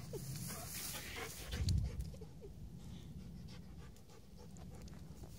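A dog panting, with a few short high whimpers in the first couple of seconds, over a low rumble that swells briefly near the two-second mark.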